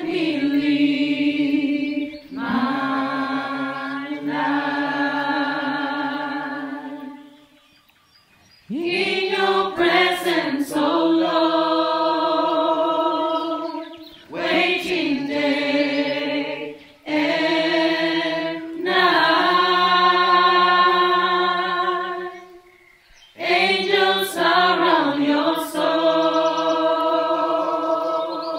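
Gospel choir singing a cappella in long held, wavering chords, in several phrases with short breaks between them.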